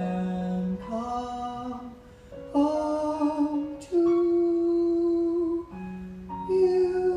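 Slow, drawn-out sung notes of a show tune's closing phrase, stepping from pitch to pitch, with one long note held with vibrato from about four seconds in.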